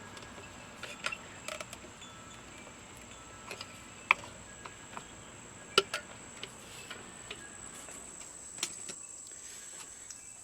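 A caulking gun and caulk being worked, with scattered light clicks and a few sharper metallic clicks, the loudest about four seconds in and again near six seconds. A steady high-pitched whine sits in the background.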